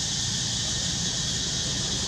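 Steady outdoor background hiss, strongest in the high range, over a low rumble, with no distinct event standing out.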